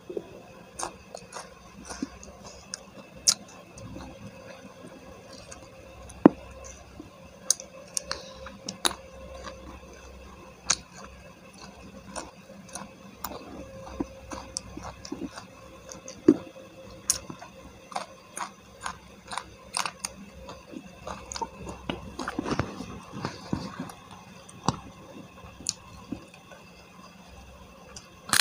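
Chewing and mouth sounds of someone eating smashed fried chicken and rice by hand, with frequent short, sharp clicks and a busier stretch of chewing about three quarters of the way through.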